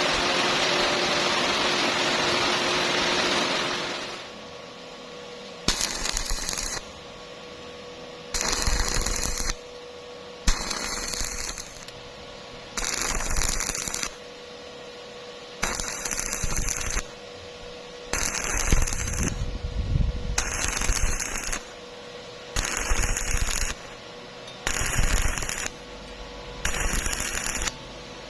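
A steady machine noise stops about four seconds in. Then a stick-welding arc crackles in short bursts of about a second, struck and broken roughly every two seconds, about a dozen times, with a faint steady hum between the bursts. This on-off arcing is typical of the intermittent technique for welding thin tube without burning through.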